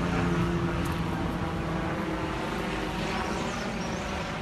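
An engine droning steadily with a low hum, slowly fading, over a rushing noise.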